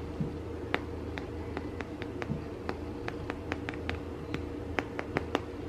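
Typing a message on a smartphone: a run of short, light, irregular clicks, a few a second, over a low steady hum.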